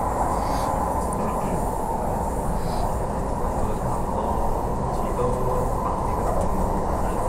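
Passenger train running along the track, heard from inside the carriage: a steady, even running noise, mostly low in pitch.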